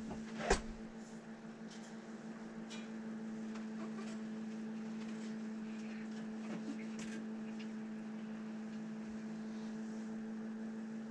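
A steady mechanical hum with a low droning tone, with one sharp click about half a second in and a few faint ticks and knocks after it.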